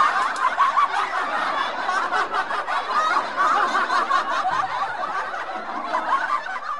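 A group of people laughing, a dense, continuous burst of laughter like a laugh-track sound effect, which cuts off abruptly near the end.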